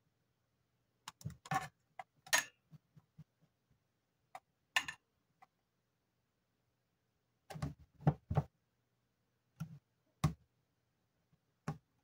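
Scattered clicks and light knocks of hands handling a steel ruler against a phone on a wireless charger, in small clusters with short gaps between.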